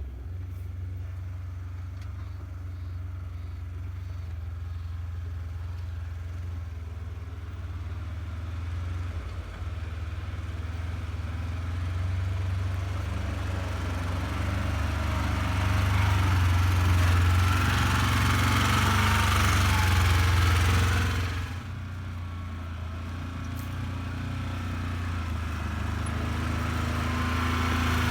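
2020 Polaris Ranger Crew 1000's twin-cylinder engine running while the machine is driven, with a steady low drone under drivetrain and terrain noise. It grows louder up to about twenty seconds in, drops off sharply, then builds again near the end.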